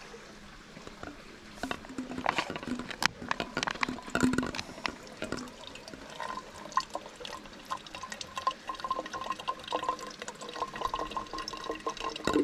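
Water trickling and splashing into a container as stream water is squeezed through a Sawyer squeeze filter. The pour is uneven at first, then from about six seconds in becomes a fast, bubbling trickle with a ringing note.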